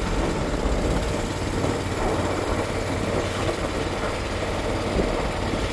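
Motorboat engine running steadily, with a constant rushing noise over it and no breaks or changes.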